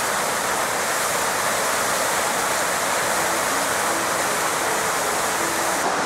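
Small waterfall on a mountain stream, white water tumbling over rocks with a steady rushing sound.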